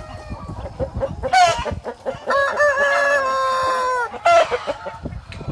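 Chickens clucking in short, choppy calls, with two sharp squawks and, in the middle, a rooster crowing once: a long held call that drops in pitch at its end.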